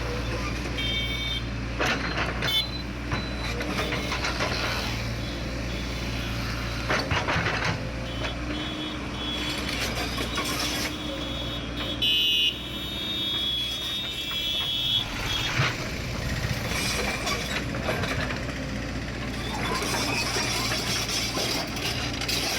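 Diesel engine of a heavy earthmoving machine running steadily while it works, with scattered metallic knocks and clanks. About twelve seconds in there is a brief, loud high-pitched tone.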